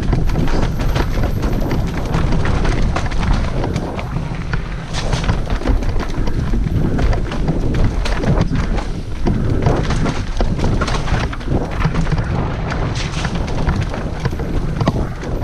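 Mountain bike riding down a rooty trail, with wind buffeting the microphone over a constant clatter of knocks and rattles from the tyres and bike on roots and dirt.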